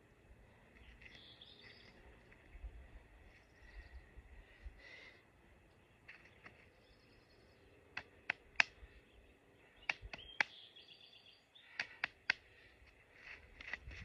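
Open-country ambience: small birds chirping on and off, with a faint low wind rumble. From about eight seconds in, a few sharp, very short clicks or chip notes come in quick pairs and threes, louder than the rest.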